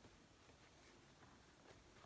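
Near silence: room tone, with faint rustles of fabric being handled and pinned.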